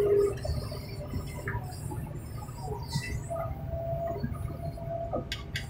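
Heavy machinery running with a low, steady engine rumble, faint metal squeaks and creaks over it, and a few sharp clicks near the end.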